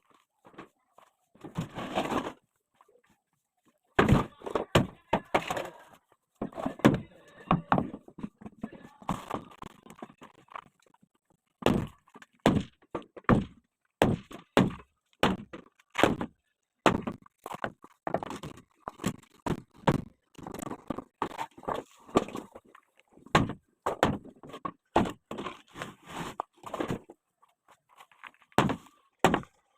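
Irregular wooden knocks, thuds and cracks in quick clusters with short pauses: shuttering plywood being struck and pried loose from set concrete formwork.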